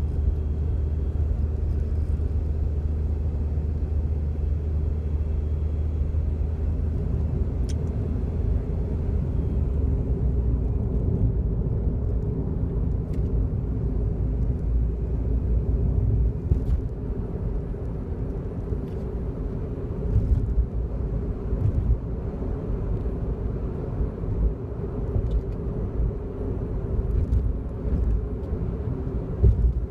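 Cabin noise of a Daihatsu Wake kei car on the move: a steady road and engine rumble, with brief ticks and a buzzing rattle from around and below the steering wheel that sets off with each vibration. It is an abnormal noise, a trim or column part trembling against its neighbour.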